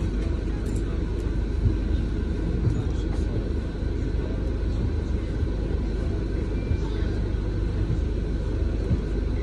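Steady low rumble of a double-decker bus, heard from inside on the upper deck, with a few brief light knocks.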